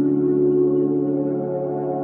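Slow ambient background music of held, overlapping tones, with higher tones entering near the end.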